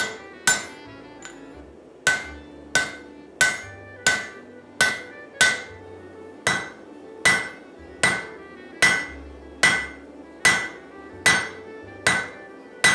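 Hand hammer blows on red-hot axe steel lying on an anvil, at a steady pace of about one strike every three-quarters of a second, each with a short metallic ring. This is the blade being thinned out by hand forging.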